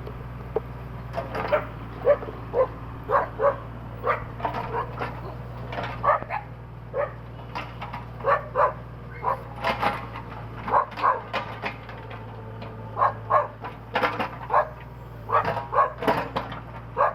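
A dog barking over and over in short, sharp barks, irregularly spaced, over the steady low hum of an idling engine.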